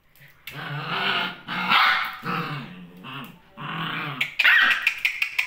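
Dogs growling while play-wrestling: a series of drawn-out growls, each up to about a second long, then shorter, sharper sounds near the end.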